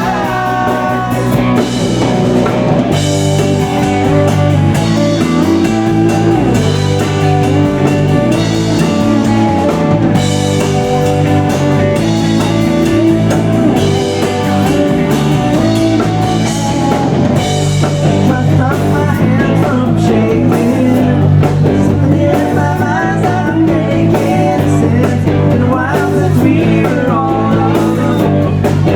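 Live rock band playing a pop-rock song, with electric guitar and drum kit.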